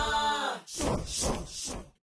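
Music with singing voices: held sung notes that bend and break every half second or so, stopping just at the end.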